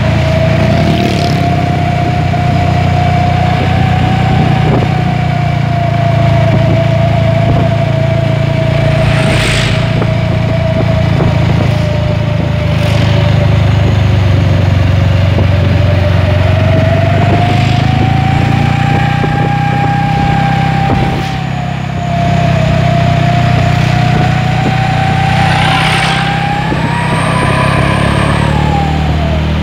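A light box truck fitted with a 'srigala' (wolf) whistle exhaust, howling a single sustained tone over the engine's rumble; the pitch slowly wavers up and down, rises near the end and then drops away.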